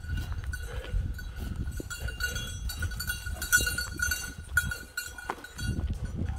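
Bird dog's bell ringing in irregular jingles as the running dog casts about working the scent of a grouse; the steady ringing shows the dog is still moving and not yet on point.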